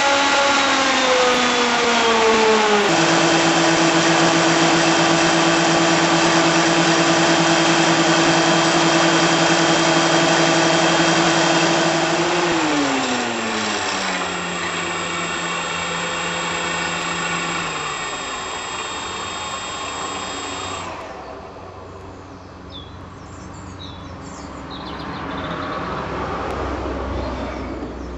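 Contra-rotating brushless electric motor, a pair of 4Max outrunners, spinning two three-bladed propellers on a test stand with a loud whine. The pitch drops to a steady lower note about three seconds in, steps down again about twelve seconds in, then the motor and props wind down and stop at about twenty seconds.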